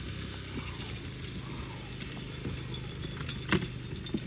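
Small motorcycle engine running steadily while it tows a wheeled mechanical roping cow on a rope over grass. A few sharp knocks come through, the loudest about three and a half seconds in.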